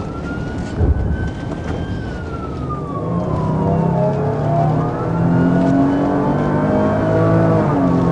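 Police car's siren on a slow wail, rising and falling, heard over the cruiser's engine accelerating hard, growing louder and climbing in pitch from about the middle. A brief thump about a second in.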